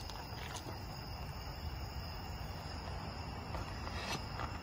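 Crickets chirring steadily in a night-time chorus, over a low rumble.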